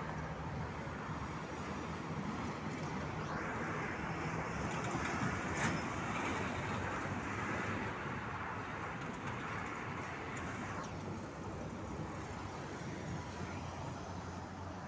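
Road traffic at a city intersection, with vehicles and a bus driving through. The sound swells for several seconds in the middle as traffic passes, and there is one short sharp sound about six seconds in.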